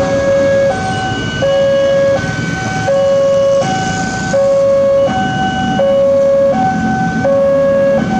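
Railway level-crossing warning alarm sounding, alternating steadily between a lower and a higher tone and switching pitch about every two-thirds of a second. It is the signal that a train is approaching while the crossing barriers come down.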